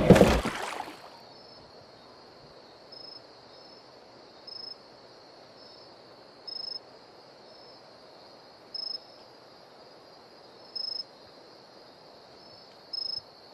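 A faint night insect chorus: a steady high cricket trill with a short, louder chirp about every two seconds. It follows a brief loud burst in the first second.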